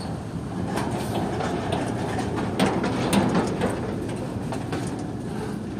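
Covered freight wagons of a departing goods train rolling past: a steady rumble of steel wheels on the rails, with a few sharp clanks and clicks, the strongest about halfway through.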